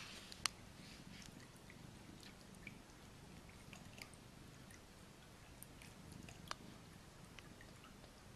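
Near silence: a low steady hum with scattered faint clicks and taps, two sharper clicks near the start and another about six and a half seconds in.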